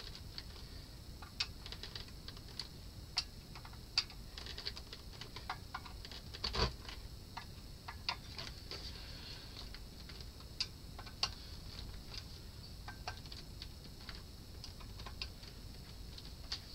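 Irregular light clicks and taps as hands handle and fit the metal-can output transistors on a Sansui AU-D907 Limited amplifier's heatsink block, with one louder knock about seven seconds in.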